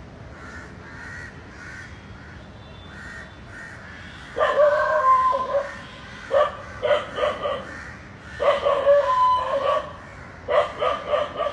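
Crows cawing faintly, then from about four seconds in a dog barking loudly in four bursts of several barks each, some drawn out into a yelping whine.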